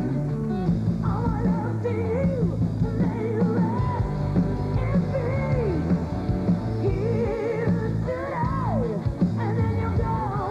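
A hard rock band playing live, with drums, bass and guitar under a singer who holds long notes with vibrato and slides between pitches.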